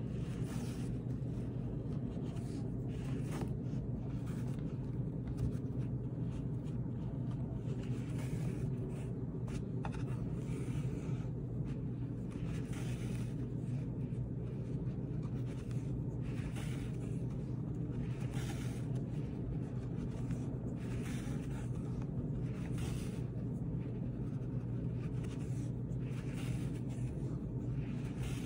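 Needle and yarn being drawn through the foundation of an antique Turkish Oushak rug during hand reweaving, in short scratchy strokes every couple of seconds, over a steady low hum.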